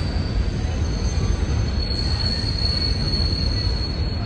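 Passing train's low rolling rumble with a steady high-pitched squeal of wheels against the rail, which grows louder in the second half and cuts off abruptly at the end.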